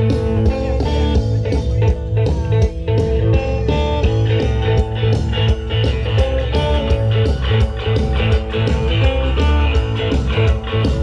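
A live band plays, with electric guitar lines over heavy bass and a steady drum beat, through a PA.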